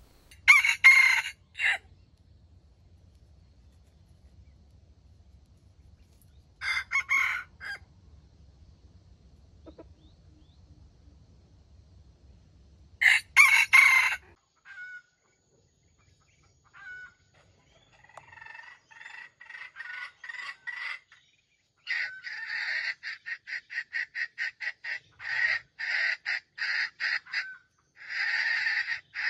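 Red junglefowl crowing: three short crows about six seconds apart, each just over a second long. Then a long run of quick, evenly repeated clucking calls, about three or four a second, that starts about two-thirds of the way through and grows louder near the end.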